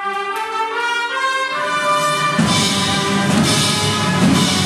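School orchestra of young wind and percussion players in its final bars: a sustained brass chord enters suddenly, shifting through a few notes, then about two and a half seconds in the full ensemble comes in loud and held.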